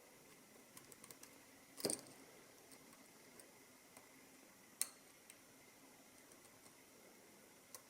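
Faint, sparse clicks of lock picking tools working the pins of a Mul-T-Lock MT5+ high-security cylinder: a short cluster of clicks about two seconds in, and single sharper clicks near five seconds and near the end.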